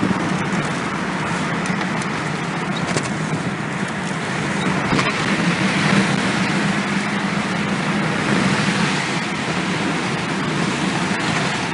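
Steady loud roar of storm wind, with a steady low hum underneath.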